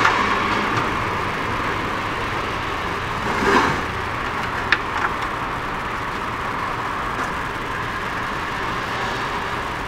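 A steady background hiss, with short knocks and clicks of a plastic electrical enclosure being handled, picked up and turned over, about three and a half to five seconds in.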